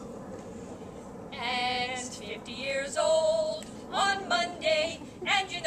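Two women singing together, starting about a second in, with some long held notes.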